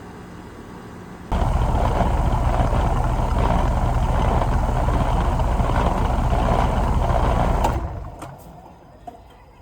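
Rheem Value Series heat pump outdoor unit shutting down: its quiet running hum gives way about a second in to a loud rushing hiss with a low rumble, typical of refrigerant pressures equalizing after the compressor stops. The hiss lasts about six seconds, fades, and a single click follows near the end.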